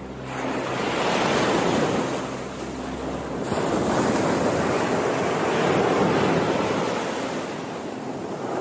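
Ocean waves breaking and washing up the shore, surging twice: once about a second in and again from about three and a half to six seconds, then easing off near the end.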